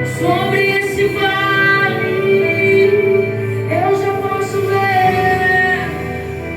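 Recorded worship song: a female vocalist holds long sung notes with vibrato over instrumental backing. About six seconds in the singing stops, leaving a soft synth pad.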